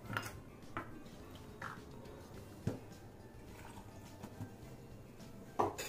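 Light clicks and knocks of a stainless-steel mixer-grinder jar and its lid being handled and set onto the mixer base. The sharpest knock comes just under halfway through, and a short cluster of clatter comes near the end.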